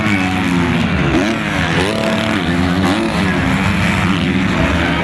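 Several motocross bikes racing, their engines revving up and down so that their pitches rise and fall and overlap one another.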